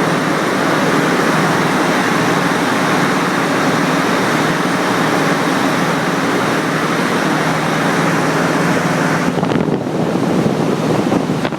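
Loud, steady machinery noise: a dense, even roar with no rhythm. From about nine seconds in it turns choppy, with rapid flutters.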